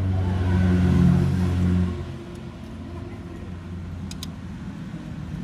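A motor vehicle engine running with a low steady drone that swells briefly and then drops away about two seconds in, leaving a quieter mechanical background.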